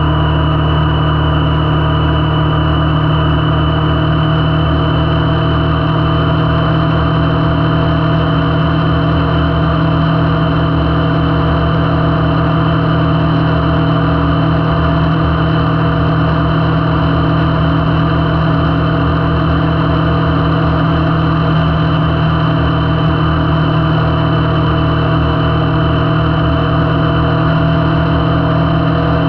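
Kawasaki Vulcan S's 649 cc parallel-twin engine running steadily at an even cruising speed, heard from on board the moving motorcycle.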